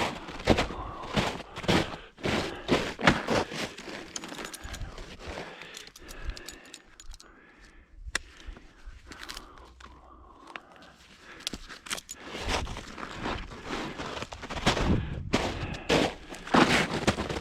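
Footsteps walking, each step a sharp impact. The steps come quickly at first, fall quieter in the middle, and grow heavier again near the end.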